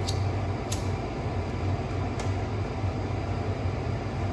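Steady humming rumble of an electric faux fireplace, with a few short sharp crackles in the first two seconds. It is the static the owner apologises for.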